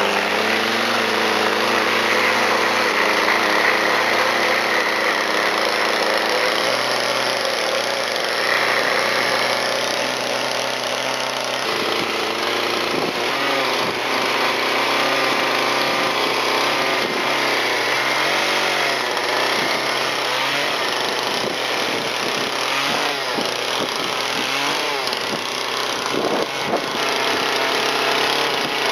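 Husqvarna gas chainsaw running and cutting into a block of white cedar. The engine holds a steady pitch for about the first twelve seconds, then its pitch rises and falls repeatedly as the throttle is worked through short cuts.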